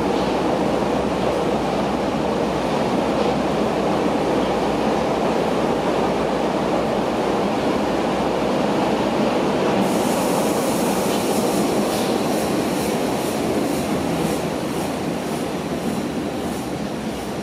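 Berlin U-Bahn type F79 train running through a tunnel, heard from inside the car: a steady dense rumble of wheels on rail. About ten seconds in, a higher hiss with regular clicks joins in, and the noise eases off near the end as the train slows into a station.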